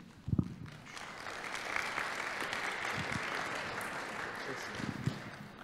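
Congregation applauding, building up about a second in and easing off near the end. A few short low thumps come through it, the loudest right at the start.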